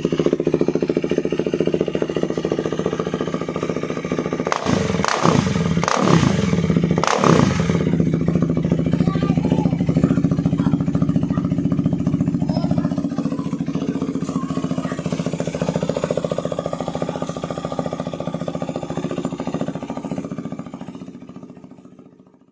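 KTM 390 Duke's single-cylinder engine idling through a full Remus aftermarket exhaust, with three quick throttle blips about five to seven seconds in. It then settles back to a steady idle and fades out near the end.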